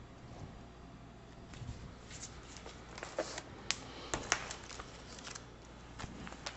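Paper rustling with light taps and clicks as a notebook page is handled, most of them bunched together between about two and five seconds in.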